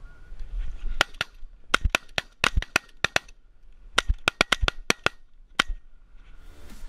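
A volley of shotgun blasts from several hunters firing together: about twenty shots in quick, uneven succession, starting about a second in and ending shortly before the last seconds.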